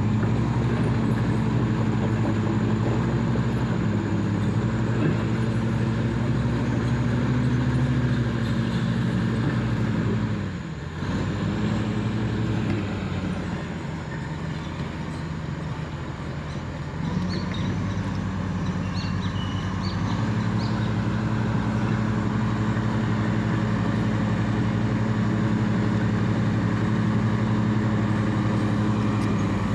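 Heavy construction machinery's diesel engine running steadily. The sound dips briefly about eleven seconds in, stays quieter until about seventeen seconds, then returns to the steady level.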